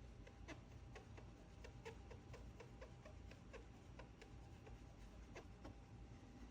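Near silence with faint, irregular light ticks, about two or three a second, from a swab being worked in small strokes over the scratched holo surface of a trading card.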